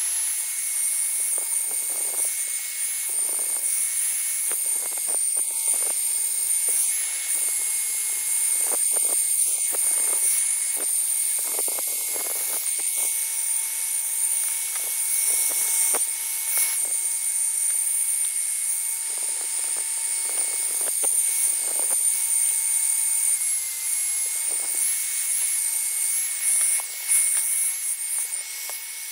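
Hand-held hair dryer running steadily, a continuous blowing hiss with a high whine, heating the glued laptop base cover to soften the adhesive. Over it come irregular short scraping strokes as a blade tool pries along the glued edge.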